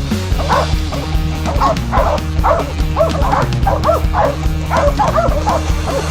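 Laika hunting dogs barking and yelping in rapid, repeated calls over background music.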